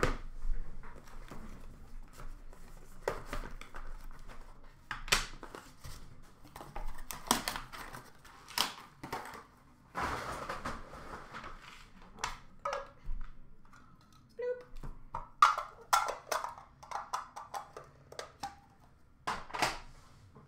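Cardboard trading-card box being opened and its packs and cards handled: irregular rustling, sliding and tapping of card stock and packaging, with a longer scraping rustle about halfway through.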